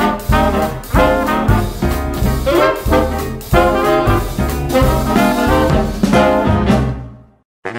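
Upbeat swing-style background music with brass and a steady beat. It fades out about seven seconds in, and a new tune starts right at the end.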